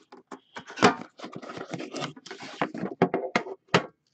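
Plastic shrink wrap crinkling and tearing as it is stripped from a sealed card box, mixed with sharp handling knocks from the box and its metal tin. The loudest knock comes about a second in.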